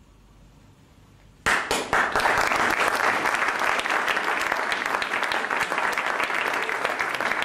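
A brief hush, then an audience breaks into applause about a second and a half in and keeps clapping steadily, greeting the end of a solo harp piece.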